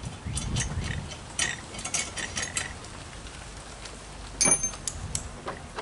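Steel nuts, bolts and brackets clicking and clinking as they are handled and fitted together. About four and a half seconds in comes one loud metal clank that rings briefly.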